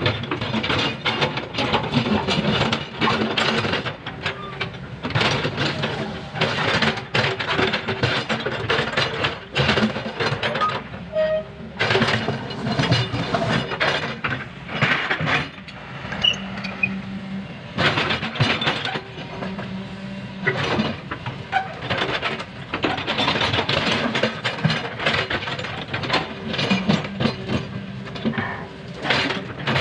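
Foton crawler excavator's engine running steadily under load, with an irregular stream of clanks, knocks and scrapes as its steel bucket works broken asphalt slabs.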